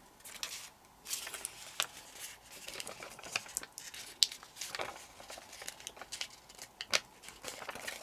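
Sheet of origami paper crinkling and crackling as fingers pinch its creases around a triangle to form a sink fold: soft, irregular crackles and clicks, with a couple of sharper ones about five and seven seconds in.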